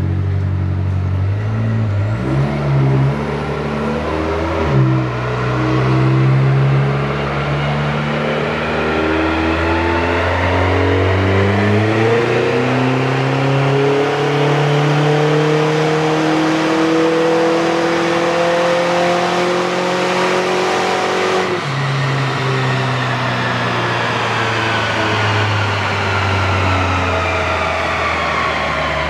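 Range Rover's built, turbocharged 2.0-litre four-cylinder engine in a wide-open-throttle pull on a chassis dyno during tuning. It revs up through two quick gear changes, then climbs steadily in one long pull of about seventeen seconds. About twenty-one seconds in it drops off suddenly and runs on at a lower, steady speed.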